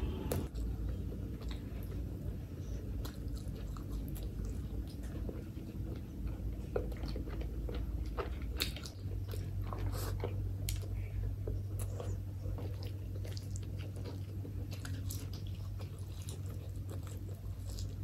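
Close-miked eating by hand: fingers squishing rice into curry gravy, then wet chewing of rice and chicken liver, with many scattered sharp mouth clicks and smacks.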